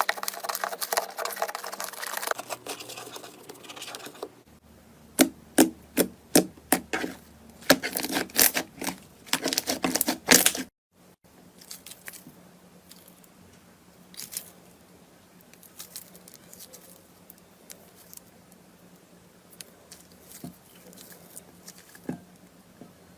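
Slime being handled close to the microphone: crackling at first, then a quick run of sharp clicking pops, then after a sudden cut soft, sparse sticky crackles and ticks.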